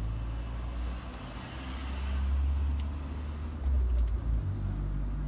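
Low rumble of a road vehicle passing by, swelling about two seconds in and again near the four-second mark, with a hiss that rises and fades.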